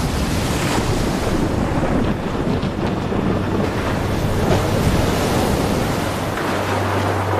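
Rough sea in a storm: waves surging and crashing around a boat's hull, with strong wind and a low steady hum underneath that grows a little near the end.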